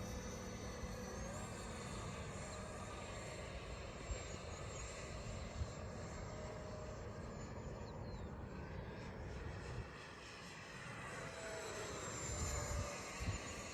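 Electric RC model airplane in flight, its motor whining and changing pitch a few times as it sweeps past overhead, with strong wind buffeting the microphone.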